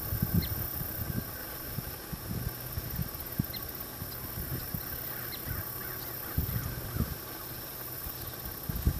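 Horse walking on soft arena dirt: soft, low hoof thuds over a low rumble, with a few short, high bird chirps scattered through and a brief burst of chirping about halfway.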